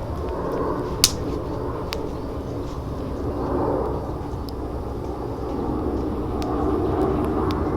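Wood fire burning in a Picogrill 760 fire pit, with a few sharp crackling pops, the loudest about a second in, over a steady low rumble.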